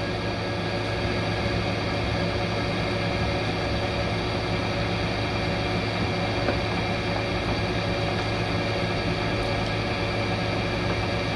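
Steady mechanical hum of a running motor, with many held tones, and one faint click about six and a half seconds in.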